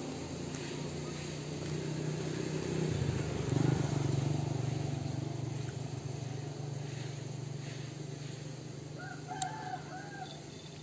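A low rumbling drone that swells about three to four seconds in and then eases off, and a short pitched animal call about nine seconds in.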